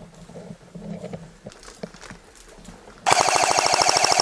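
Heavy breathing close to the microphone. About three seconds in, an airsoft electric rifle opens up on full auto, a loud, fast, even rattle of shots.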